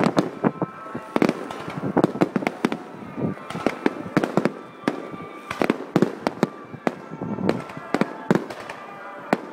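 Aerial fireworks shells bursting in a rapid, irregular barrage, several bangs a second.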